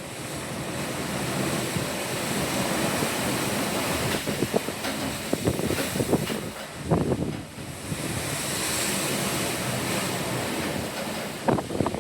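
Pacific Ocean waves washing and surging, with wind buffeting the microphone in gusts, strongest a third of the way in and again near the end.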